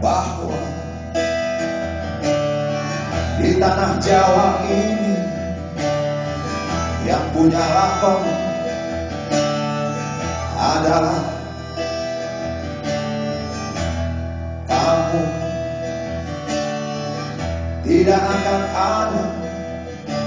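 Live band music led by strummed acoustic guitar over a steady bass line, in an instrumental passage of the song.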